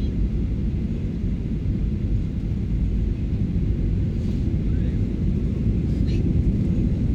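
Boeing 737-800 cabin noise heard at a window seat over the wing on short final: a steady low rumble of its CFM56 jet engines and the airflow as the airliner comes down over the runway just before touchdown.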